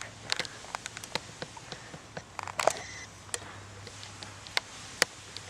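Rubik's Cube being turned by hand: irregular plastic clicks and clacks as its layers snap round, a dozen or more at uneven spacing.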